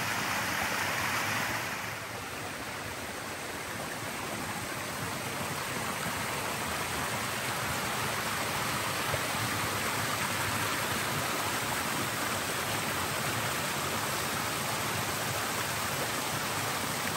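Steady rush of flowing water from a stream, softer for a moment about two seconds in, then building back up.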